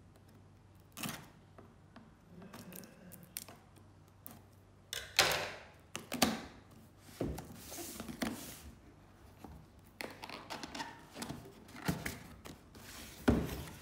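Scissors slitting the tape seal on a cardboard box, then the cardboard flaps and lid being pried up and slid open. Scattered scrapes, clicks and rustles of cardboard, with the loudest scrape about five seconds in and a sharp knock near the end.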